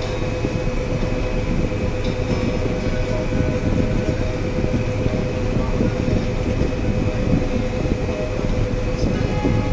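John Deere 9670 STS combine running steadily while harvesting, heard from inside the cab: a constant deep rumble with a steady whine on top.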